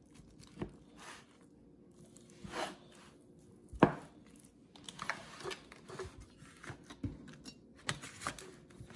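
A fork and then a spatula cutting through lasagna and scraping and knocking against a disposable aluminium foil pan: scattered clicks, scrapes and foil crinkles, with one sharp knock about four seconds in.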